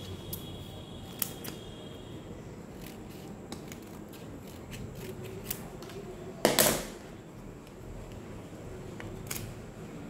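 A homemade paper blind bag being handled and shaken: scattered light paper clicks and crinkles, with one louder burst of noise about six and a half seconds in.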